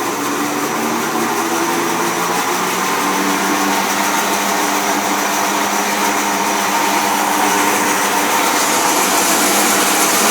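A 1954 Crescent 36-inch bandsaw's direct-drive motor spinning up its heavy Carter wheels: a steady hum and whir that grows slowly louder as the wheels gain speed.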